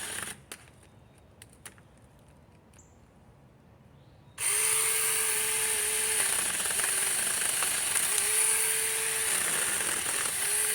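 Battery-powered 24-volt mini chainsaw: it stops, and after a few seconds with only light clicks it starts again about four seconds in. It runs steadily for about six seconds, its whine dipping twice under load, then cuts off at the end.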